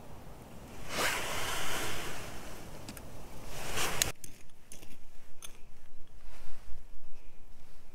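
A broad rushing noise for about three seconds that cuts off abruptly, then a small metal digging tool scraping and clicking in gravelly soil and pebbles.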